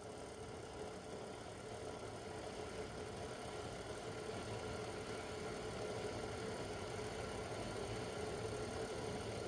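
Water heating in a stainless steel pot on a KitchenAid induction range: a steady hum and rumble that slowly grows louder as small bubbles form on the bottom, the water nearing the boil.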